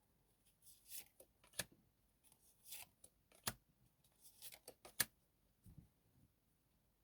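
Faint handling of tarot cards: soft rustling swishes and several sharp light clicks, the loudest about five seconds in.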